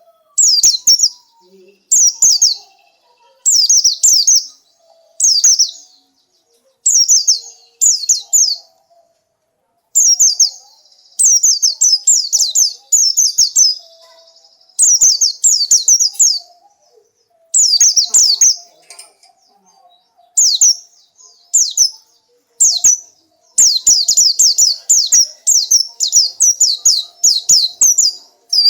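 White-eye (pleci) singing: short bursts of high, rapid chirping notes repeated about once a second, running together into longer, denser runs near the end.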